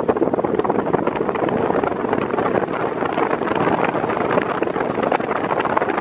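Electric pedestal fan (Arno VB40, 40 cm) running on its lowest speed, a steady rough rush of moving air buffeting the microphone.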